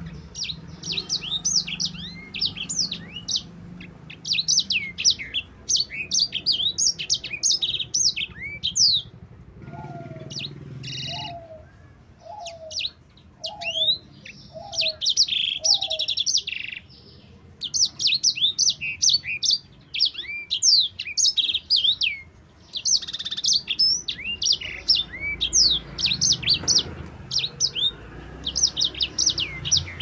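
Sanger (grey singing finch) singing a fast, high twittering song in long rolled phrases, broken by short pauses. In the middle a lower note is repeated six times, about twice a second.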